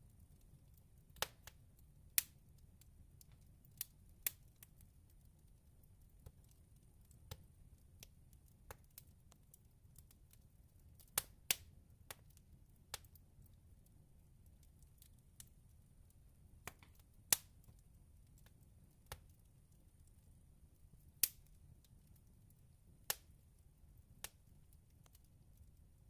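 Oak, walnut and hedge (Osage orange) log fire in a fireplace grate crackling, with sharp pops at uneven intervals every second or two, the popping coming from the hedge wood. A faint steady low rumble of the burning runs underneath.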